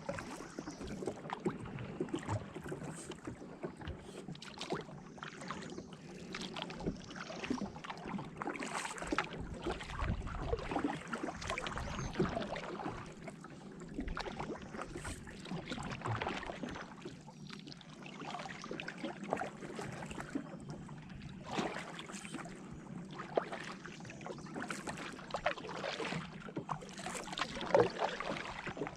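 Kayak paddling on open water: a paddle dipping and splashing, and water lapping against a sit-on-top kayak's hull in irregular splashes.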